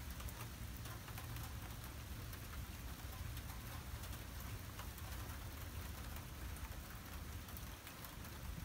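Steady rain falling, with many small drop ticks, over a low steady rumble.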